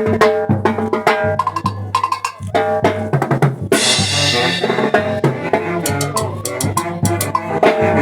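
Live band music: drum kit and cowbell keeping a steady beat under pitched melodic instruments, with a cymbal crash about four seconds in.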